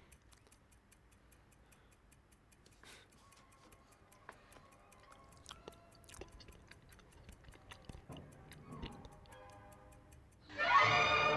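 Quartz wall clock ticking steadily and faintly, with a few sharper clicks. Quiet music notes creep in underneath, and near the end loud music suddenly cuts in.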